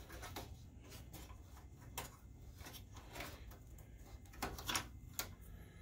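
Faint scattered clicks and rustles of wire harnesses and plastic parts being handled inside an opened DLP projector, with a low steady hum underneath; the clicks come a little louder about four and a half to five seconds in.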